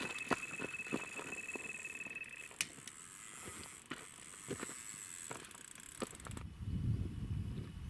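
Carp bite alarm sounding one continuous high tone that cuts off about two and a half seconds in, over rapid irregular clicking of the reel as line is pulled off: a carp taking the bait on a run. A low rumble comes in near the end.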